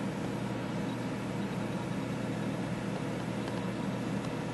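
Steady low hum and hiss of background room noise, with no distinct events.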